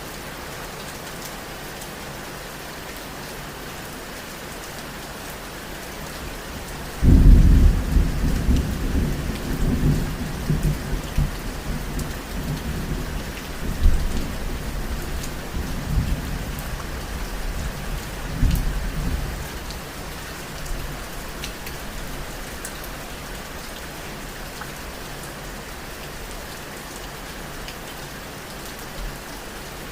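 Steady rain falling, with a sudden clap of thunder about seven seconds in whose deep rumble swells again a few times before fading out some twelve seconds later.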